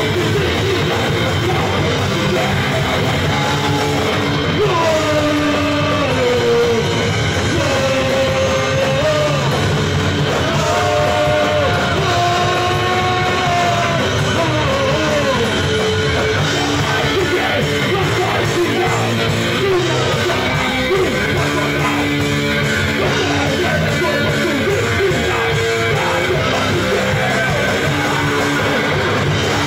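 Live rock band playing loudly: electric guitars over bass and drums, with a vocal or lead line that slides up and down in pitch through the first half.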